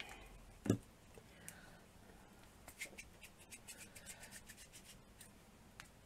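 Small handling sounds of clay and craft tools on a work surface: a single knock about a second in, then a run of light, scratchy clicks and rubbing.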